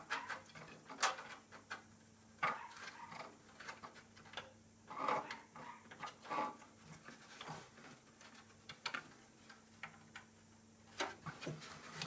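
Irregular light clicks, taps and rustles of 3D-printed SLS nylon airframe parts being handled and pushed together as a snap-lock tail feature is worked into place.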